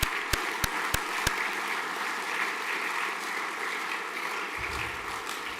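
Audience applauding: a few sharp, evenly spaced claps, about three a second, in the first second or so, then a steady wash of many hands clapping.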